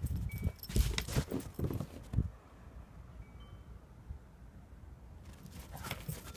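Wind chimes tinkling faintly now and then, with irregular bursts of rustling noise during the first two seconds and again near the end.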